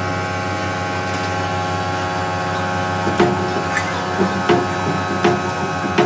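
A steady electrical hum, then from about three seconds in a series of sharp snaps roughly every 0.7 s, five in all. The snaps come from a spot welder's copper electrode tacking a steel bracket onto a chrome motorcycle front-fork tube.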